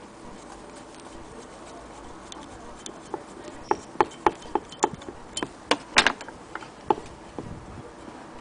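Irregular sharp clicks and taps as a screwdriver works the screw holding the wooden crank handle on the cast-iron hand wheel of a Willcox & Gibbs sewing machine hand crank, loosening the handle. The clicks come in a run from about three seconds in to about seven seconds, loudest near six seconds.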